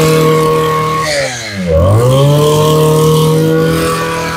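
Kyoritsu brush cutter's small two-stroke engine (33 mm bore) revved at full throttle; about a second in the throttle is let off and the pitch drops, then it is opened again and the engine climbs back to a high, steady scream.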